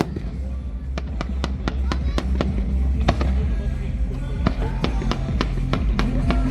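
Fireworks going off in a rapid, irregular series of sharp bangs and cracks, over loud music with a steady bass line.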